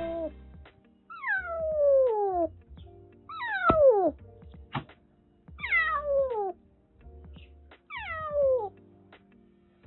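Brown-and-white stray kitten meowing from inside a wire live trap: four long meows about two seconds apart, each falling steeply in pitch. These are the protest calls of a freshly trapped stray kitten.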